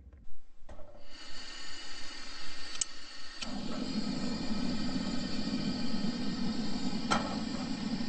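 Coleman propane camp stove being lit: gas hisses, then there are sharp clicks. The burner catches about three and a half seconds in and burns with a steady low rush. Near the end a single metal clink comes as a stainless steel percolator is set on the grate.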